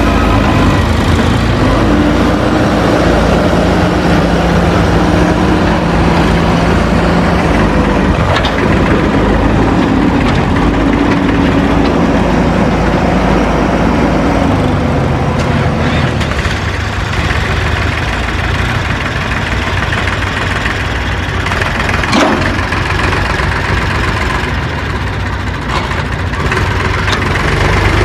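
Heavy-equipment diesel engine running under load at a loading site, its note rising and falling with the revs through the first half. A sharp knock comes about eight seconds in and another about 22 seconds in.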